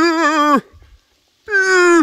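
Drawn-out, wavering nasal moaning calls of a cow moose: one about a second long that drops in pitch as it ends, and a second starting about a second and a half in.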